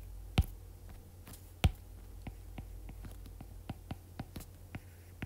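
Stylus tip tapping and clicking on a tablet's glass screen during handwriting, a scatter of small sharp ticks with two louder taps in the first two seconds, over a faint low steady hum.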